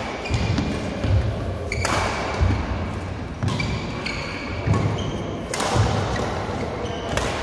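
Badminton doubles rally: rackets striking the shuttlecock every second or two, with players' shoes thudding on the court between hits.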